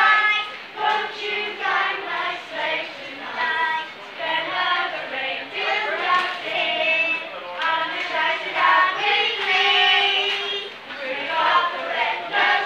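A children's choir singing together in chorus.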